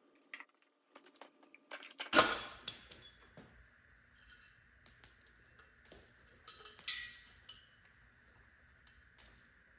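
Metal engine parts and hand tools clinking and being set down during an LS V8 teardown, with one louder clank that rings briefly about two seconds in and another cluster of clinks near seven seconds.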